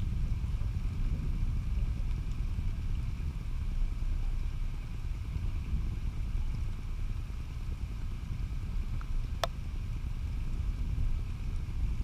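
Thunderstorm ambience: a continuous low rumble that never swells or dies away, with one sharp click about nine seconds in.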